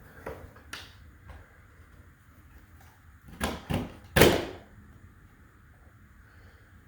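Plastic smoke alarm housing clicking and knocking as its side locking tabs are worked to free it from its mount: a couple of light clicks, then three sharp knocks between three and a half and four and a half seconds in, the last the loudest.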